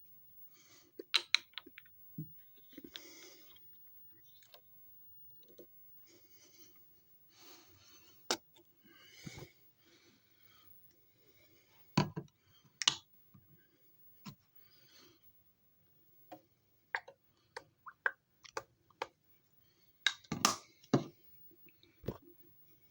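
Irregular clicks, taps and brief rustling of objects being handled by hand, with a few sharper knocks about 12, 13 and 20 seconds in.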